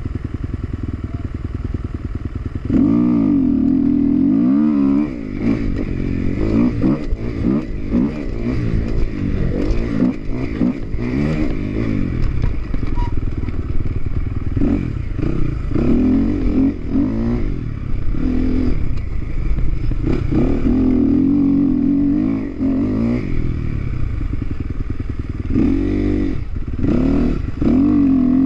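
Dirt bike engine ticking over for the first few seconds, then revving hard as the bike pulls away, its pitch rising and falling again and again as the rider accelerates and shifts, with knocks and rattles from the bike over the rough ground.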